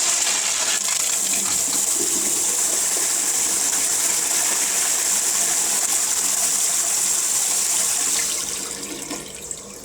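Eljer pedestal urinal flushing on a flushometer valve: a loud, steady rush of water for about eight seconds that then tapers off near the end.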